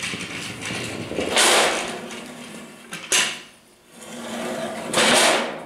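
Small steel-framed rail trolley rolling on angle-iron rails onto a steel turntable plate, a metallic rolling rattle in two swells with a single sharp knock between them.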